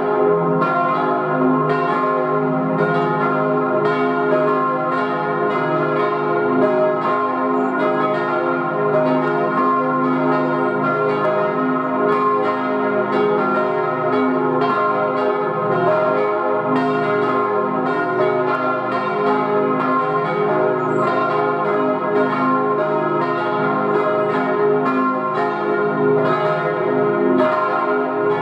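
Church bells from a tower peal of four bronze bells tuned C, E-flat, F and A-flat, cast in 1897 by the Rüetschi foundry in Aarau. Several bells swing and strike together in a continuous, overlapping peal, each stroke hanging on in a long ring.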